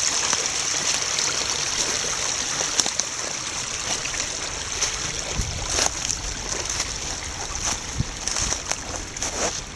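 Small snowmelt stream babbling and trickling, a steady rushing of water that grows gradually quieter, with a few faint clicks.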